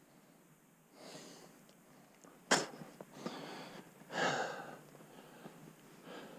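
Footsteps crunching through snow, a few separate steps, with a single sharp snap about two and a half seconds in.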